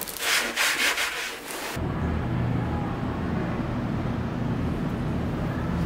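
Brief rustling and shuffling while boots are pulled on. From about two seconds in this gives way suddenly to a steady, muffled low rumble.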